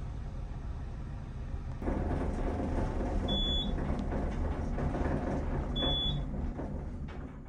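Vehicle driving, a steady low road and engine rumble that gets louder about two seconds in. Two short high beeps sound about two and a half seconds apart.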